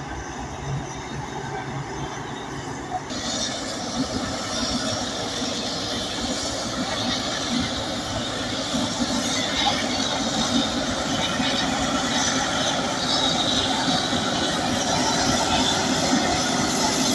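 Crawler bulldozer working, its diesel engine running under the steel tracks' squealing and clanking, which grow louder from about three seconds in.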